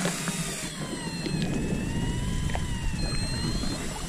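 Fishing reels winding in line from deep water with a howling whine that wavers slowly up and down in pitch, over a low steady rumble, with a few faint clicks.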